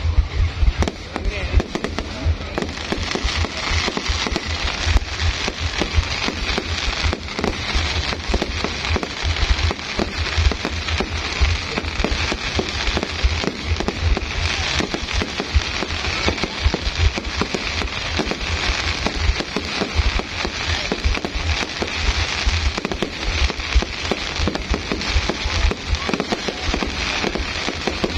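Fireworks bursting without a break: dense crackling and rapid pops over low booms.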